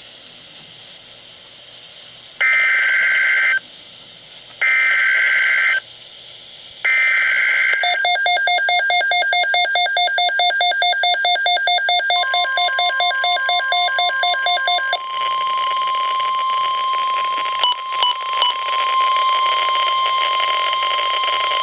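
NOAA Weather Radio alert tones. After a moment of faint radio hiss come three one-second bursts of warbling SAME digital header data, each about a second apart. Then comes a harsh rapidly pulsing alarm, and from about twelve seconds in the long steady 1050 Hz warning alarm tone that precedes a watch or warning announcement.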